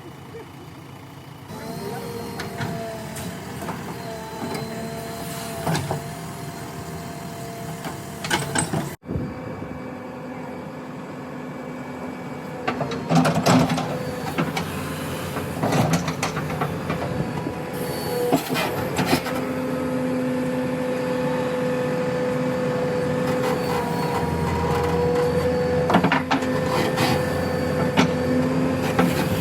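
JCB 3DX backhoe loader working, its diesel engine running under load with a steady whine, and repeated metallic clanks and knocks from the digging arm and bucket.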